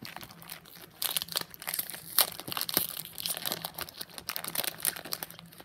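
Foil wrapper of a Pokémon card booster pack crinkling as it is torn open and handled, a dense crackle that gets busier about a second in.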